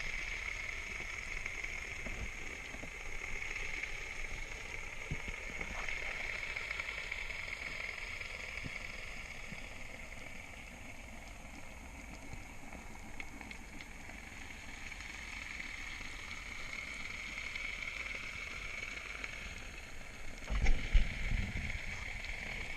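Underwater ambience: a steady hiss with faint scattered clicks, and a short, louder low rumble of water noise about 21 seconds in.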